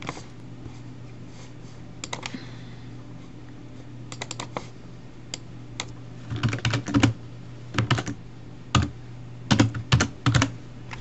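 Typing on a computer keyboard: a few scattered key presses in the first half, then quick clusters of keystrokes in the second half, over a steady low hum.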